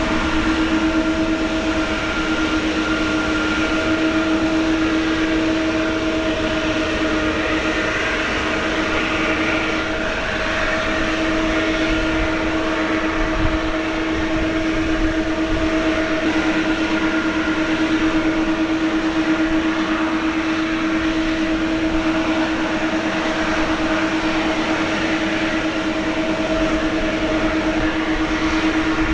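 Twin turbofan engines of a Boeing 777-200ER running at low taxi power as the airliner rolls slowly by: a steady whine with a constant tone over a broad rush of engine noise.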